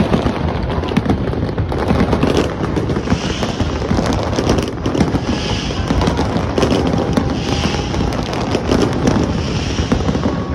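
Fireworks display going off: a dense, continuous run of booms and crackling bangs, with a hiss swelling about every two seconds.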